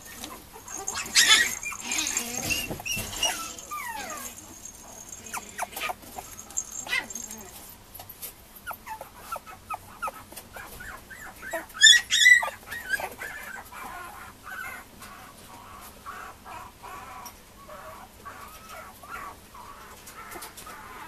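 Mame shiba puppy whimpering and whining in short, high, wavering calls, with one louder cry about twelve seconds in.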